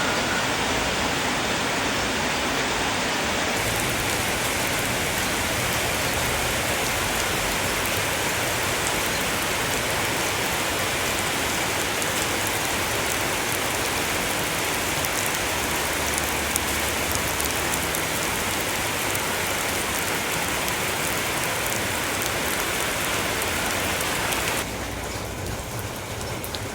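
Steady rain falling: an even hiss with a fine patter of drops. A couple of seconds before the end it cuts suddenly to a quieter, duller noise.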